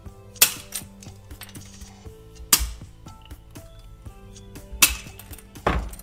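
Diagonal side cutters snapping through the plastic fan blades of a 12-volt cooling fan at the hub: four sharp cracks, the last two close together.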